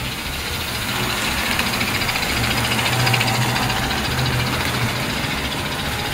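Toy electric steam locomotives running on three-rail O gauge track: a steady rumble of metal wheels on the rails with a motor hum, swelling to its loudest about three seconds in.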